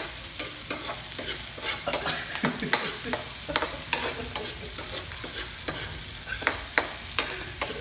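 Metal spatula clinking and scraping against a metal wok as vegetables are stir-fried in hot oil, over a steady sizzle. The clinks come irregularly, two or three a second.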